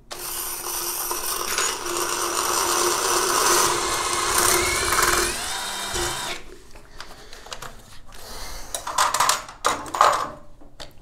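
Ryobi cordless drill with a ceramic-and-tile bit boring into shower wall tile, the motor running steadily for about six seconds and then stopping. A few light knocks and clicks follow.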